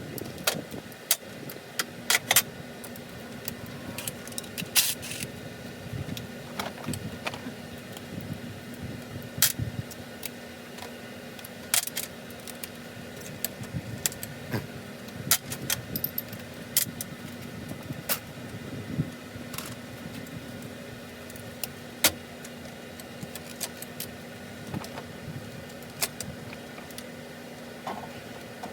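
Irregular metallic clicks and clinks of hand tools and bolts being handled against metal engine parts, over a steady low hum that comes in about two seconds in.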